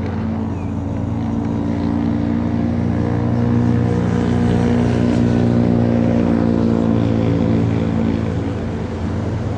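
A passing engine drone with a deep, steady pitched hum that swells through the middle and then eases off.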